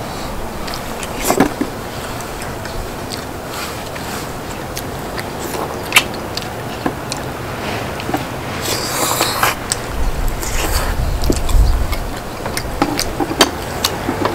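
Eating sounds: chewing and slurping, with scattered sharp clicks of utensils against the cast-iron pot-lid griddle, over a steady hiss. A longer noisy slurp or scrape comes about nine seconds in.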